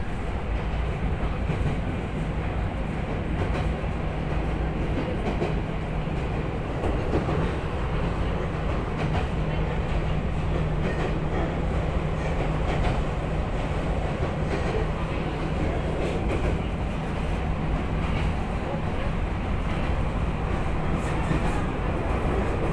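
Running noise inside a moving electric commuter train car: a steady rumble of wheels on the rails with a low hum for most of it.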